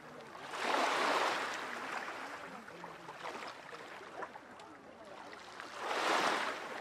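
Small sea waves washing onto the shore twice, a few seconds apart, each swelling and fading over about a second, with faint chatter of a crowd of people behind.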